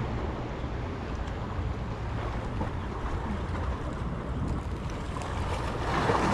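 Sea waves washing against breakwater rocks, with wind on the microphone; the wash swells a little near the end.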